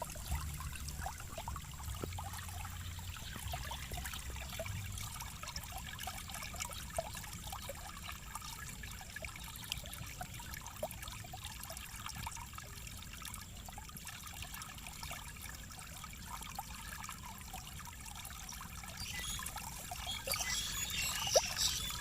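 Flowing water trickling and splashing steadily, with many small drips, and a louder, brighter patch of splashing near the end.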